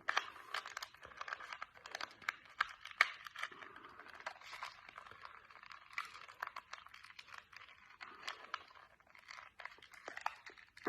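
Rapid, irregular small clicks and rustling from hands twisting and fiddling with a mini Rubik's cube, going on throughout with a few louder clacks.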